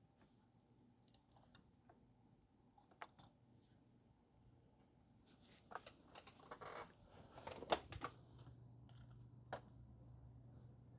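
Faint scattered clicks and rustling of objects being handled, busiest in the middle, as a donor board is searched for. A low steady hum comes in about two-thirds of the way through.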